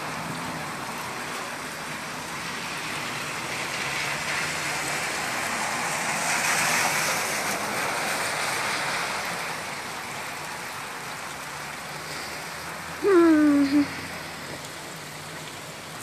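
Steady rushing, hissing water of rain and street floodwater, swelling a little midway. About 13 seconds in comes a loud, short pitched cry that falls in pitch, then a brief second one.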